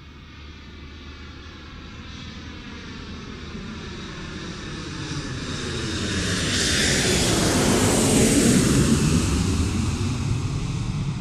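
An aircraft flying over: its engine noise grows steadily louder, is loudest about eight seconds in, then begins to fade as it passes.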